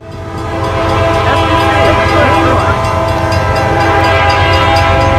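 Locomotive horns blowing chords over the low rumble of passing trains, with a level-crossing bell ringing in quick, even strikes. The sound swells up over the first second and then holds loud.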